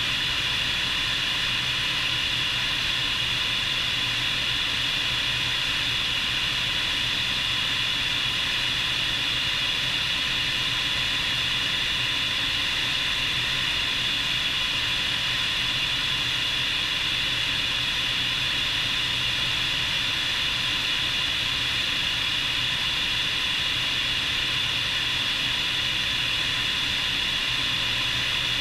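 Bell 430 helicopter in flight, heard from the outside of the airframe: a steady high whine from its twin turboshaft engines over a constant rush of rotor and air noise.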